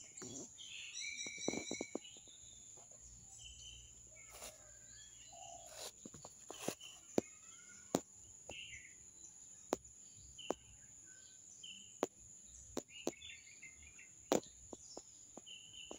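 Birds chirping outdoors: short high calls every second or two, with a brief warbling song near the start, over a steady high-pitched drone. Scattered sharp clicks are heard throughout.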